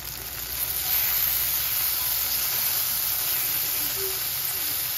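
Cherry tomatoes sizzling in hot oil in a frying pan, a steady hiss that gets louder about a second in.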